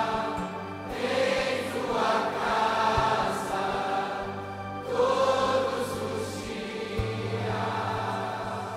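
Live worship music: a group of voices singing long held vowels over sustained keyboard and bass, the bass note changing every three to four seconds, fading near the end.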